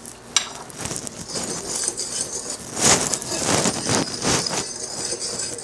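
Wire whisk stirring a dry flour mixture in a mixing bowl: a run of uneven swishing, scraping strokes, with a sharp click near the start.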